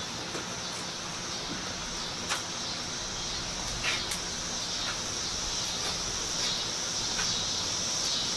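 Steady high-pitched chorus of insects, with a few faint clicks about two and four seconds in.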